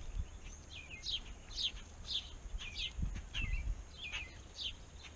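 Small birds chirping: short, quick downward-sliding chirps repeated about twice a second, with a brief low rumble about three seconds in.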